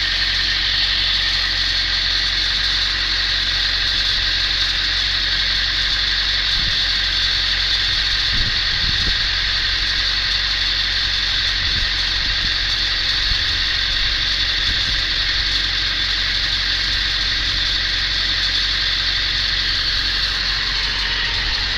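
Ford 7.3L Powerstroke V8 turbo-diesel idling steadily, with a metallic rattle from under the truck, a few faint knocks heard in the middle. The owner thinks the rattle may come from the flexplate or the starter rather than the engine itself.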